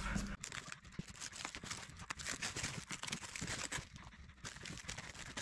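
Plastic wrapping crinkling and tearing as it is pulled off a box, a rapid run of faint crackles.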